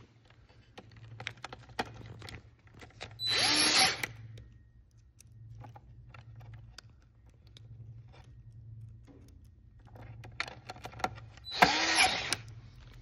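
Power drill driving screws into a trolling motor's plastic head housing: two short runs of about a second each, several seconds apart, with light clicks of handling and parts between them.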